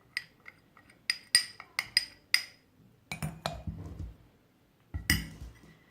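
A utensil clinking against a glass jar several times, each clink ringing briefly, as a honey and olive oil mixture is spooned into it. Handling and scraping sounds follow, then one louder knock near the end.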